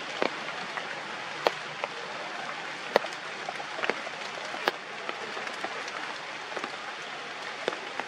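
Steady rain falling on forest foliage, with sharp, louder single drips landing every second or so.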